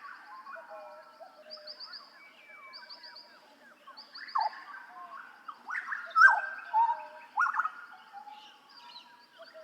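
Butcherbird (jagal Papua) song: loose, loud whistled notes that sweep up and down, loudest in a cluster in the second half, over a background of other birds chirping and a thin, high repeated trill.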